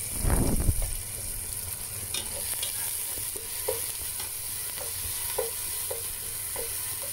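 Diced onion, garlic, tomato and bell pepper sizzling in a nonstick frying pan as a spatula stirs them. There is a louder stir about half a second in, then short spatula scrapes across the pan roughly every half second.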